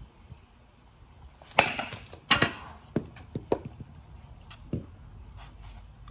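Two hard knocks about a second and a half and two and a quarter seconds in, the second the louder, then several lighter clacks and taps from the baseball bat and balls being handled around a batting tee.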